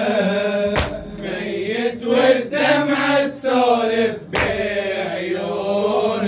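A man chanting an Arabic Shia elegy (latmiyya) solo into a microphone, a long wavering melismatic line held between the words. Two short sharp noises break in between phrases, about a second in and again past the middle.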